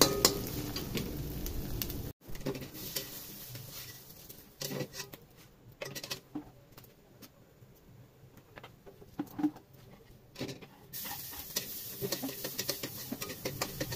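Eggs frying in a stainless steel wok, a steady sizzle that cuts off abruptly about two seconds in. Then scattered light clicks and knocks of a metal spatula against the wok, with a steady hiss coming back near the end.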